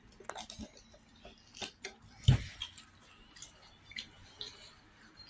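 Close-up eating sounds while chewing fried eggplant: scattered wet smacks and clicks of the mouth, with one sharp low thump a little over two seconds in, the loudest sound.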